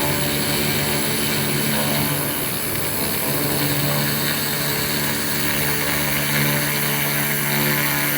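Laser rust-cleaning machine running steadily: a constant machine hum with a bright hiss over it, the hum wavering briefly about two to three seconds in.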